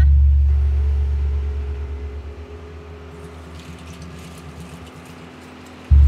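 Tractor engine running close by with a heavy low rumble. It is loud at first and fades over a few seconds as the tractor moves away.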